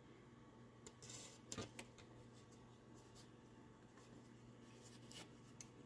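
Near silence, with a few faint clicks and rustles of small metal steering-column parts being handled, a cluster about a second in and two more near the end.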